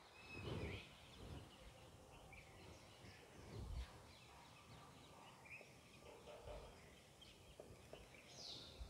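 Near silence: faint room tone with scattered faint bird chirps and a few soft low thumps.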